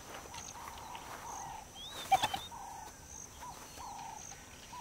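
Birds calling in the bush: a short call repeated about once a second, with a few high chirps over it. A brief, sharp, louder call comes about two seconds in.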